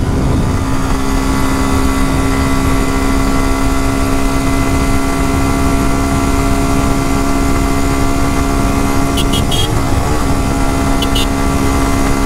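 Suzuki Gixxer SF's single-cylinder engine holding a steady, unchanging note while cruising at about 118 km/h in fifth gear. Heavy wind rush on the microphone covers it.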